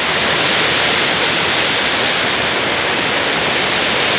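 Steady rush of flowing water, a loud even hiss that swells a little at the start and then holds level.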